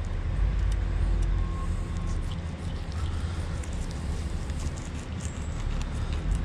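A steady low rumble fills the background, with faint ticks and scrapes as a fillet knife cuts along a black drum's backbone.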